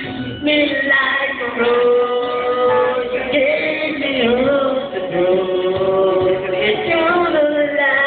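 A person singing into a microphone over backing music, holding long notes that waver in pitch.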